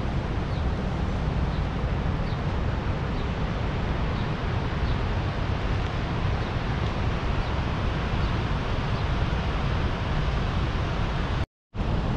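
Steady rushing roar of the upper Niagara River rapids, with a strong low rumble. The sound drops out completely for a moment near the end.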